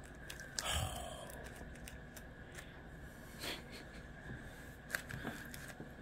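Faint, scattered crinkling of plastic candy wrappers as a small child's hand picks through a bowl of fun-size candy bars.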